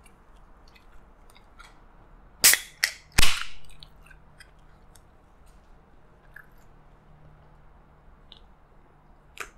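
Aluminium Pepsi can being cracked open by its pull-tab, about two and a half seconds in: two sharp clicks, then a louder pop with a short hiss of escaping carbonation.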